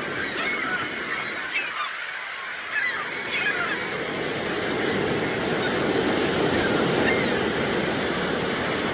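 Gulls calling: many short, overlapping cries, busiest in the first few seconds and sparser after, over the steady wash of surf.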